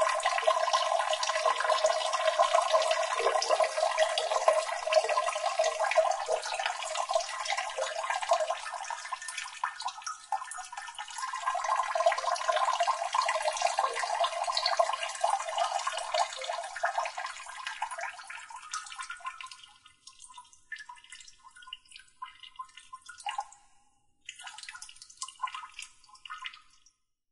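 Running water splashing steadily, then thinning out near the end into scattered drips and short trickles.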